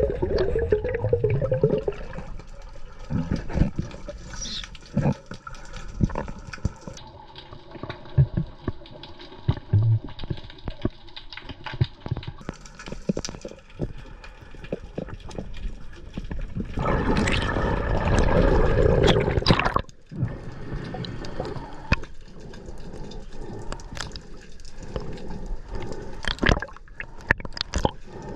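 Water sloshing and gurgling around a snorkeller's camera at or below the surface, with irregular small clicks and knocks. A louder rush of water lasts about three seconds, a little past halfway.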